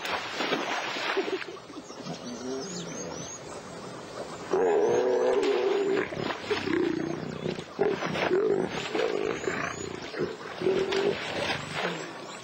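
Young lions growling and snarling as they wrestle in shallow water. Water splashes in the first second or so. About four and a half seconds in comes a loud, long snarl, then a string of shorter growls.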